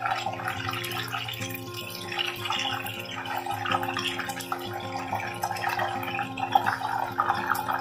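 Cornflour-coated chicken pieces deep-frying in hot oil: a steady crackling sizzle, with a low steady hum underneath.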